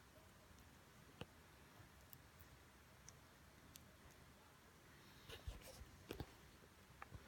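Near silence, broken by a few faint clicks and taps: one about a second in, then a small cluster in the second half. They are the kind made by a budgerigar's beak and feet on its cage or food.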